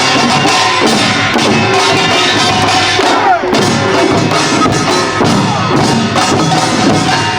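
Korean pungmul percussion band playing in the Imsil Pilbong nongak style: gongs and drums beat loudly together in a dense, continuous rhythm.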